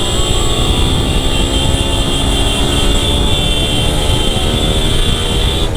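Motorcycle engine running steadily under way, with wind rush on the microphone and a steady high whine above it.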